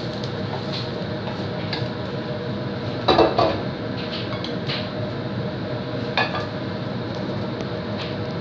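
Wooden spatula scraping fried rice out of a metal non-stick wok into a ceramic bowl, with light knocks. There is a louder clatter about three seconds in as the wok is set back on the gas stove's grate, and another clank about six seconds in as the spatula is laid in the wok.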